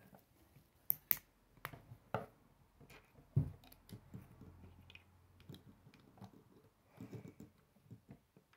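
Plastic K'nex rods and connectors clicking and rattling as they are handled and snapped together, in a string of irregular small clicks with a sharper one about three and a half seconds in.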